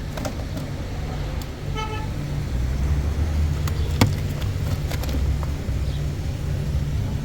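A steady low motor rumble runs throughout. A short pitched toot or call sounds about two seconds in, and a sharp click comes about four seconds in.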